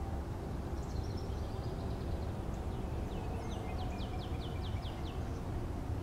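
Wild songbirds singing: faint high notes about a second in, then a quick run of short, falling notes from about three seconds in. A steady low rumble runs underneath.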